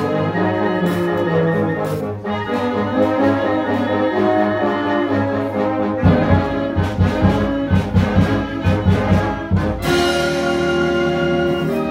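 Concert band of brass and woodwinds (trombones, trumpets, clarinets, tuba) playing a piece. A regular beat in the low instruments comes in about halfway, and the band moves to a held chord near the end.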